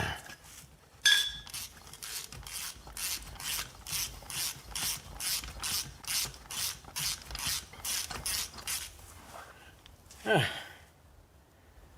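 Ratchet wrench clicking in quick, even strokes, about three a second, backing out a stuck lug nut on a rear wheel, after one sharp click about a second in.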